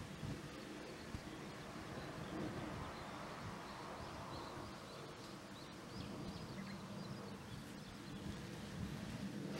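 Faint outdoor ambience: a steady low background rumble and hiss, with a few faint bird chirps in the middle.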